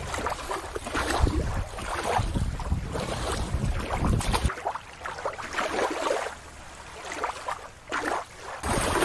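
Shallow river water splashing and lapping as a plastic toy turtle is moved through it, with wind buffeting the microphone. About halfway through it cuts abruptly to a quieter, duller ambience, and the splashing returns just before the end.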